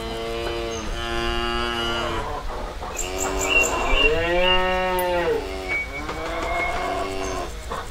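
Cows mooing: several long, low calls one after another, the loudest and longest about four seconds in.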